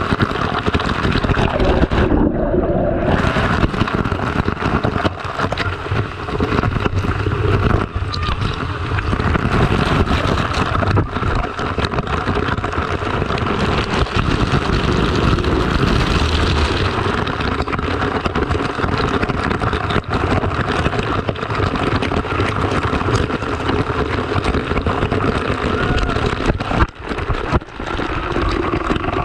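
Water splashing and churning right at a waterproof action camera held at the surface, as a swimmer thrashes through the pool; a dense, steady rush with low rumble.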